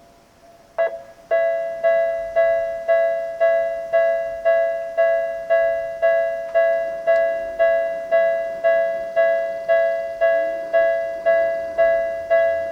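Electronic railway level-crossing warning bell of Tokyu's newer tone type starting up about a second in, then striking steadily about twice a second. Each stroke is a ringing chime of several tones that fades before the next.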